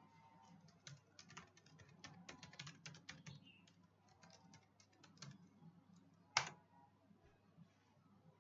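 Computer keyboard typing, quiet: a run of quick keystrokes as a domain name is entered, a short pause, then a shorter run for the password. About six and a half seconds in comes one much louder single click as the login is submitted.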